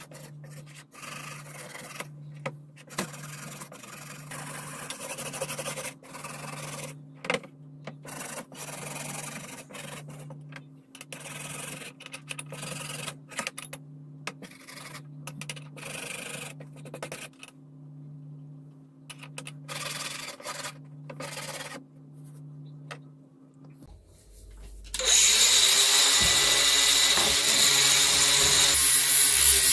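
Wire brush scrubbing rusty steel wrenches in soapy water, in short irregular scratchy strokes. About 25 seconds in, an angle grinder switches on, spins up and runs loudly and steadily.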